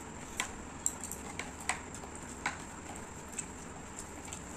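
Eating at the table: a metal spoon clicks and scrapes lightly against a divided plate about half a dozen times, spaced irregularly, over a quiet room.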